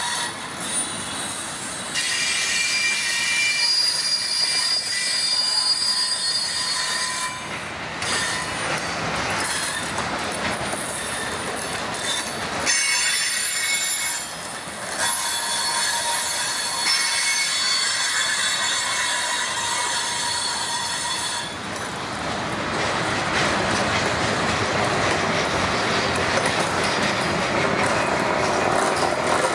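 Freight train boxcars rolling past close by, their wheels squealing in high steady tones on and off through the first two-thirds. Later this gives way to a steady rolling rumble of wheels on rail.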